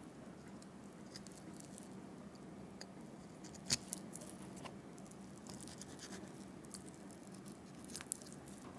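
Faint knife work on raw rabbit meat: a knife scraping and cutting along the leg bone, with a few small ticks and one sharper click a little before the middle, over a steady low hum.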